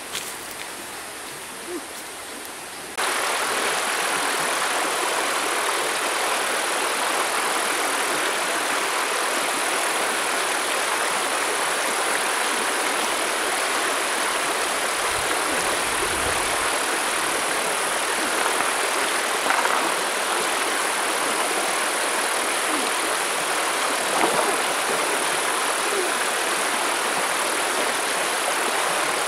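Shallow stream rushing over a low line of stones, a loud steady rush of water that starts abruptly about three seconds in after a quieter stretch with a few light clicks. A couple of brief splashes stand out in the second half.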